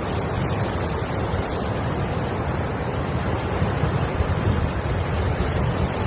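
Sea waves washing steadily, with wind buffeting the microphone in a low rumble.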